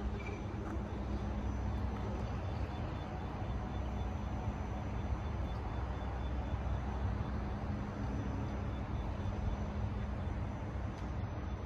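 Steady low engine hum and road noise of a moving car.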